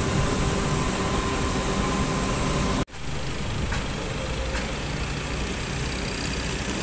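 Heavy engines of construction machinery and trucks running steadily in the background of a busy construction site, with a faint steady tone in the first few seconds. Near the middle the sound drops out for an instant where the recording cuts, then carries on.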